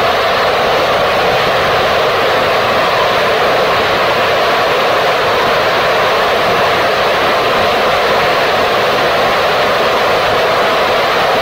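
Gilmour Space Phoenix third-stage liquid rocket engine in steady burn on a static test stand: a loud, even roar of exhaust that holds its level and pitch without change.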